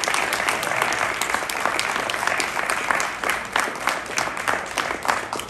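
A small group of people applauding, a dense patter of hand claps that thins out near the end.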